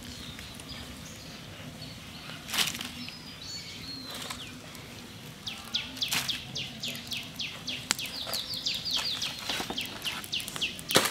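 Dry twigs and leaves rustling in quick repeated strokes as they are pushed into a wood fire under a cooking pot, starting about halfway in, with a couple of sharp snaps earlier.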